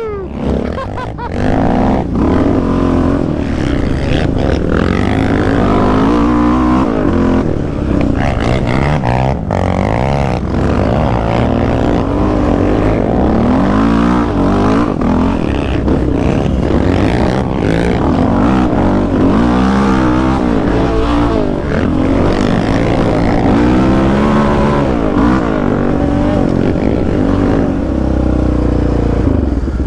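Yamaha Raptor 700 sport quad's single-cylinder four-stroke engine, with an aftermarket full exhaust, revving up and down over and over under hard riding on a dirt trail.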